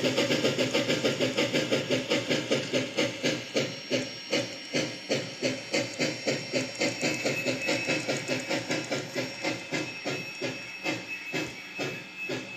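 A rhythmic mechanical chugging with a hiss on each beat, about three to four beats a second, slowly growing fainter.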